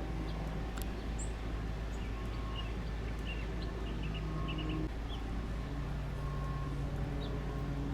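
Outdoor ambience: a steady low rumble with an engine-like hum that shifts pitch about five seconds in, and scattered short bird chirps.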